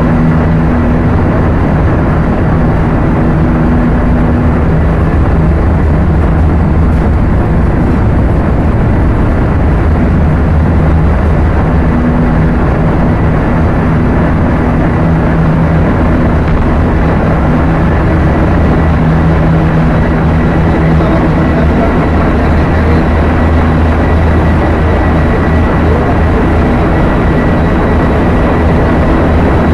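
Loud, steady machinery din of a container ship's engine room running at sea: a deep hum under a dense wash of noise, with a thin high whine held steady.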